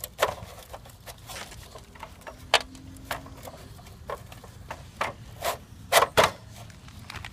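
Circuit board of a CRT television being worked loose and slid out of its plastic casing: scattered knocks and clicks of plastic and hardware. The sharpest knock comes about two and a half seconds in, with two more near the end.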